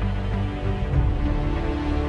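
Soundtrack music: held notes over a heavy, steady bass.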